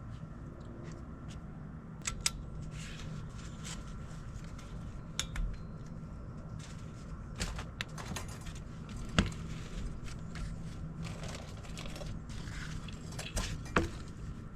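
Scattered clicks and knocks of hand tools and metal parts being handled, the sharpest about nine seconds in, over a steady low hum.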